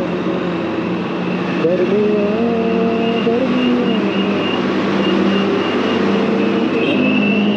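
Motorcycle engine running on the move, its revs rising just before two seconds in and easing back down a little after three seconds.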